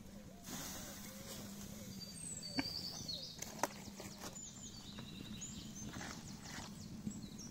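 Quiet outdoor ambience: birds chirping in short high calls over a low steady hum, with two sharp clicks about a second apart near the middle.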